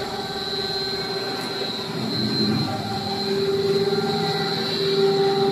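Twin-screw rubber sheeter running while its rolls draw out a rubber sheet: a steady machine drone from the drive motors and rolls, with a high, steady whine over it. It grows a little louder about halfway through.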